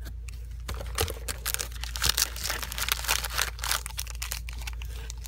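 Candy packaging crinkling and crackling as it is handled, a dense run of rustles that tails off near the end, over a faint steady low hum.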